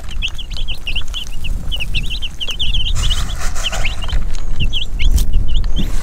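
A flock of three-to-four-day-old Cornish cross chicks peeping: many short, high chirps overlapping, several a second, over a low rumble.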